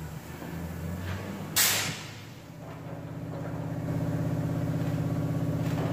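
A short, loud hiss about a second and a half in, then an electric angle grinder spinning up and running steadily at full speed.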